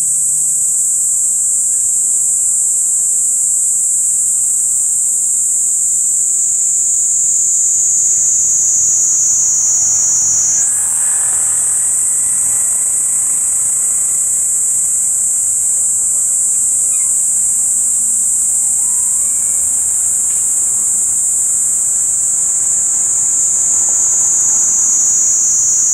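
A Kaempfer cicada (niiniizemi) singing a continuous, loud, high-pitched shrill buzz. Its pitch sags slowly and jumps back up about ten seconds in.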